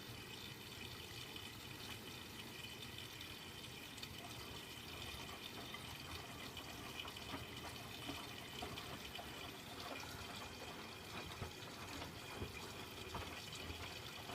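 Miele W Classic WDA110 front-loading washing machine taking in water during a rinse: a faint, steady rush of running water with a few light ticks and drips.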